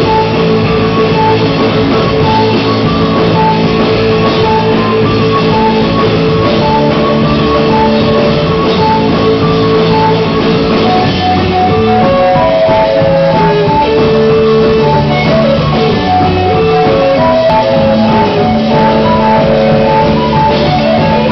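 Live instrumental rock band playing loud: electric guitar, drum kit and keyboard, with a repeating high melodic figure over held low notes, the chords changing about halfway through.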